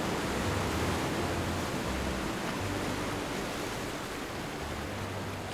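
Steady rushing noise that eases off slightly toward the end, with faint low held notes underneath.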